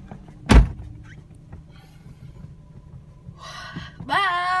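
Inside a moving car: steady engine and road rumble, with one sharp thump about half a second in. Near the end a held, pitched tone rises quickly and then stays level.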